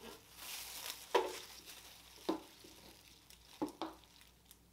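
Clear plastic wrap rustling as an electric cooktop's power cord is pulled out of it and unwound, with a few light knocks from the cord being handled: one about a second in, another a second later, and two in quick succession later on.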